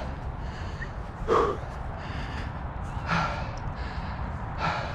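A football player breathing hard while running, a heavy breath about every one and a half seconds, over a steady low rumble.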